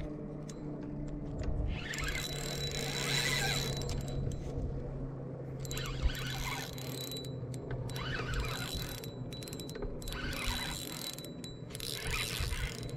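Spinning reel being worked while playing a fish, its gears and ratchet clicking in irregular spells, over a steady low hum.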